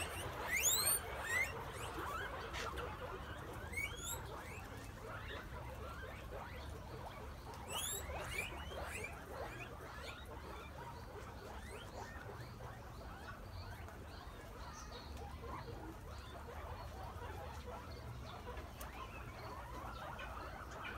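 A large herd of guinea pigs calling: clusters of sharp rising squeals, most of them in the first ten seconds, over a steady faint chatter of many small squeaks.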